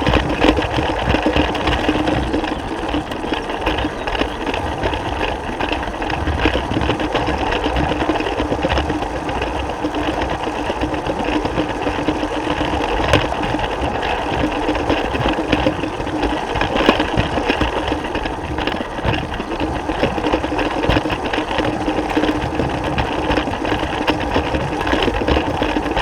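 Lego train running on plastic track: a steady electric-motor whir with a dense, fast rattle of the wheels and gears, unchanging throughout.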